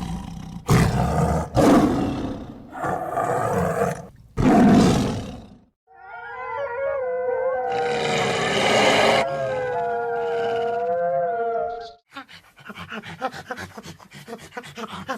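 A sequence of animal calls: about five loud roars, each a second or so long, then several overlapping drawn-out calls that waver in pitch, then a fast run of short pulses near the end.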